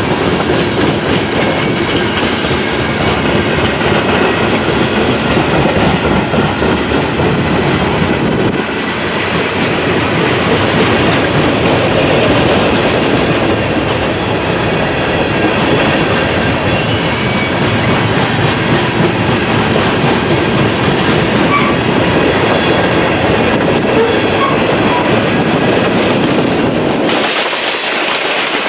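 Freight cars of a long mixed train, covered hoppers and tank cars, rolling past with steady wheel-on-rail noise. The low rumble drops away about a second before the end.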